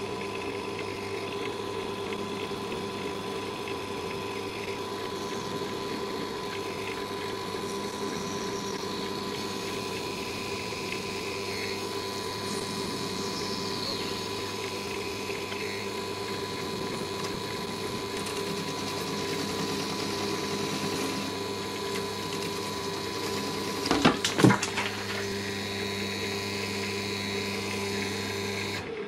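Wood lathe motor running at a steady hum while a hand-held gouge cuts a spinning blank of crayon wax. Near the end comes a short, loud clatter of knocks.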